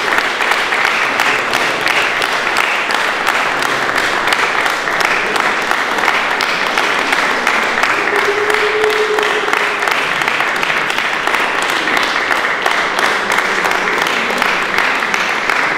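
A group of people applauding steadily, dense continuous hand clapping that stops suddenly at the very end.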